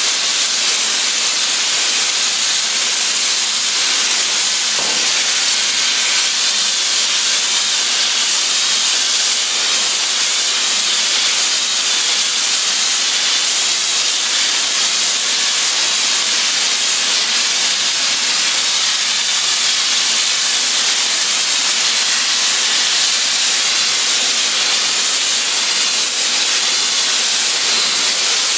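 Hand-held thermal spray gun running continuously as it sprays a metal coating onto steel pipe. It makes a loud, steady, jet-like hiss that is strongest in the high frequencies.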